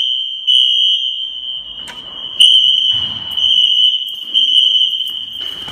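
Wheelock fire alarm horns sounding a loud, steady high tone in the temporal-3 evacuation pattern: three pulses about a second apart, a pause, then three more.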